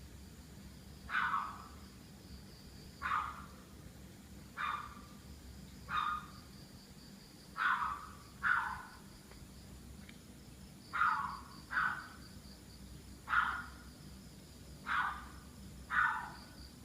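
A dog barking again and again: about eleven single barks every second or two, some in quick pairs. Crickets chirp steadily underneath.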